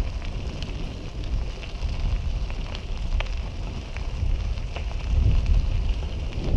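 Bicycle tyres rolling over a gravel trail, a steady crackle with scattered small ticks of stones, over a low rumble of wind on the microphone.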